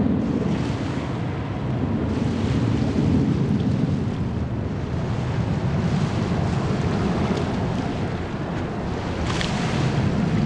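Steady low rumble of a Boeing 777-200ER's jet engines as the airliner descends to land, mixed with wind buffeting the microphone.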